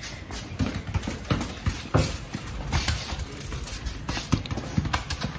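A football being kicked and juggled during ball tricks: irregular short thumps of foot on ball, about two a second.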